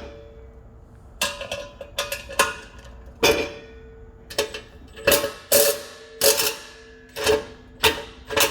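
An irregular run of sharp metallic clicks and clanks, about two a second, each ringing briefly: a wrench working the bracket bolts loose at the back of a drain-cleaning sink drum.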